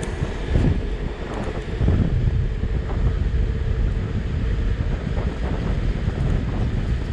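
Wind buffeting the microphone in a loud, uneven low rumble, over a steady hiss of wind and surf.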